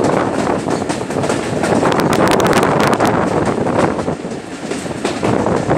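Running noise of a moving passenger train heard from its own coach: wheels rolling and rattling on the rails with irregular clicks, and wind rushing over the microphone. It eases slightly about four seconds in.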